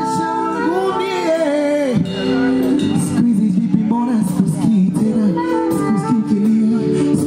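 Bongo Flava music with a singing voice, playing loud through a PA system during a sound check.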